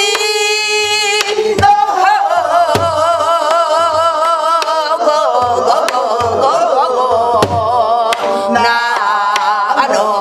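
A woman sings guum, Korean wordless vocables, in long held notes with a wide vibrato. She accompanies herself with stick strokes on a buk, a Korean barrel drum, at uneven spacing.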